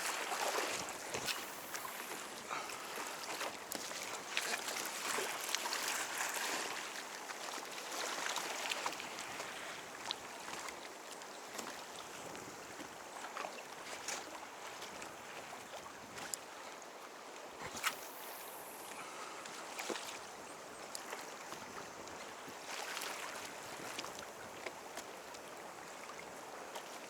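Seawater lapping and sloshing against a fishing kayak's hull, with scattered light knocks and clicks from the boat and gear.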